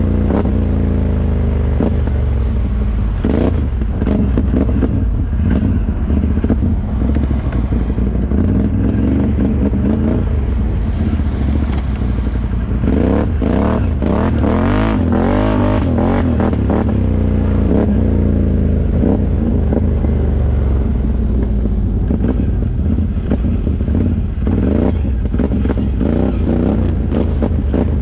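Can-Am ATV engine with a Yoshimura aftermarket exhaust running under way on a trail. The revs swing up and down several times about halfway through, with scattered short knocks from the machine over rough ground.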